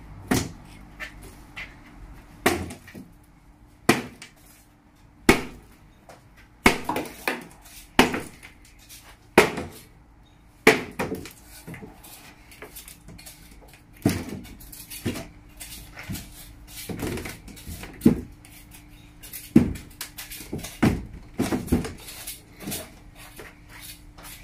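Hammer blows knocking apart a painted wooden shelving cabinet. Sharp, irregular knocks come about one every second or so, with wooden shelf panels breaking loose.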